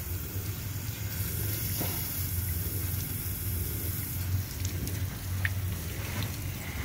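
Pop-up sprinkler spray head running, a steady hiss of water spattering onto the ground, with a steady low rumble underneath. The head is not popping up all the way because there is not enough water pressure in the line.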